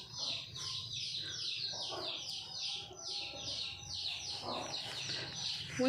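Birds chirping steadily: a run of short, high, falling chirps, about three a second.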